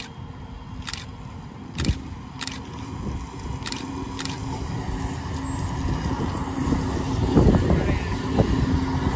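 DUEWAG/Siemens MGT6D low-floor tram approaching on street track and passing close by, growing steadily louder to a peak as it goes past, with a steady motor hum over the wheels running on the rails. A few sharp clicks in the first few seconds.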